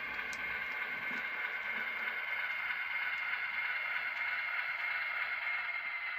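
Model diesel locomotive's electric motor and gearing running with a steady high whine and hiss as it pulls a short freight past, with a few faint ticks from the wheels on the track. The whine drops slightly in pitch near the end.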